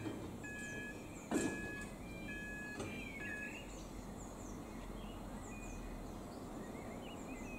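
Level crossing warning alarm sounding an alternating two-note tone, about one note a second, while the barriers lower; it stops about three and a half seconds in. A single sharp knock comes about a second and a half in, and birds chirp throughout.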